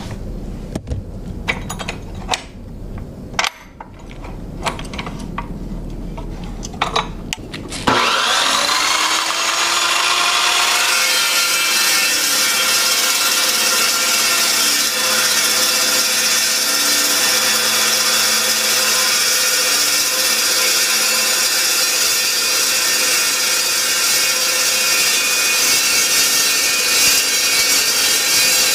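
A few clicks and knocks of handling, then about 8 seconds in an Evolution EVOSAW380 cold saw starts up with a rising whine. Its carbide-tipped blade then cuts steadily through 3-inch steel pipe with a half-inch wall.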